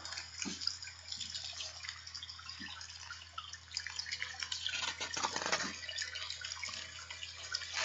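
Paper rustling and handling noise from a hardcover picture book as it is held up and its pages turned, over a steady low hum and hiss.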